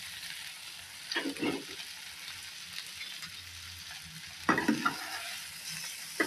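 Soaked poha being stirred into a frying onion-mushroom masala in a pan: a steady faint sizzle, with spatula scrapes about a second in and again louder near four and a half seconds.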